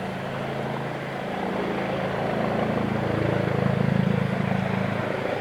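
Police helicopter hovering close by: a steady low drone of rotor and engine that grows louder toward about four seconds in, then eases slightly.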